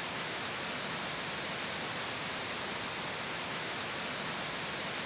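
A waterfall rushing, as one steady, even sound of falling water.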